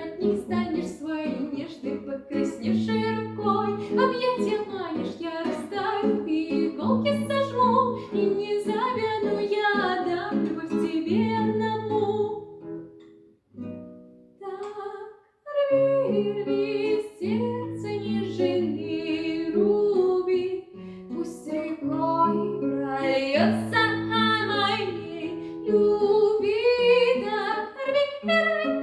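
A woman singing a Russian pop song with guitar accompaniment. The music drops almost to silence for about three seconds near the middle, then resumes.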